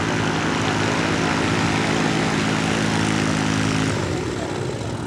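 Two-stroke engine and pusher propeller of a SkyCycle ultralight weight-shift trike in flight, running steadily; about four seconds in the engine note drops and grows a little quieter.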